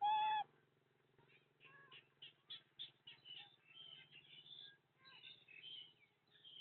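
Bird-like animal calls: one loud, short honking call at the start, then a rapid run of short, high chirps and squeaks.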